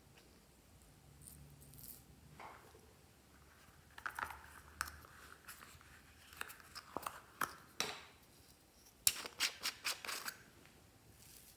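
Light plastic handling: clicks and scrapes as a small plastic jar of pink beads is taken from a pink bunny-shaped plastic holder and its cap is worked open, with a quick run of sharp clicks near the end.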